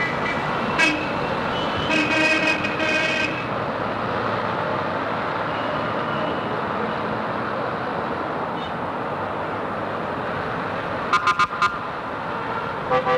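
Steady city street traffic noise with car horns honking: a short toot about a second in, a longer honking a couple of seconds in, and a quick run of four short beeps near the end.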